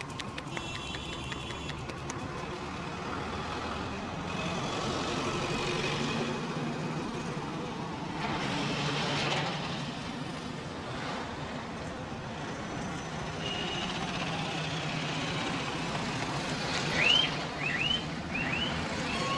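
Street traffic running steadily. A brief high tone sounds near the start, and a quick run of short high chirps comes near the end.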